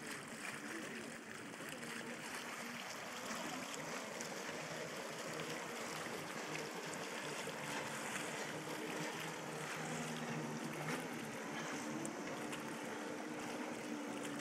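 Steady wash of lake water lapping against the rocks of a pier, with a faint low hum underneath.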